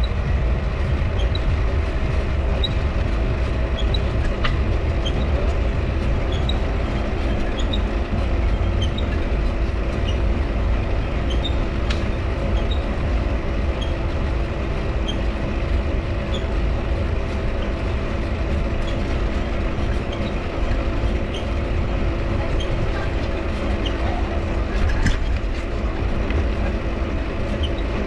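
Mifa folding bike being ridden: the tyre dynamo hums steadily over a low rumble, and the crank gives a short high squeak again and again in time with the pedalling.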